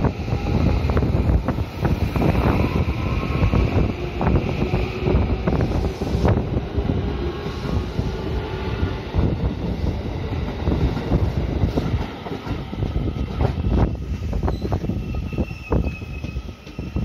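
A JR West silver commuter electric train passes close by with a loud steady rumble and rapid clicking from its wheels running over the rail joints. Thin tones ride above the rumble.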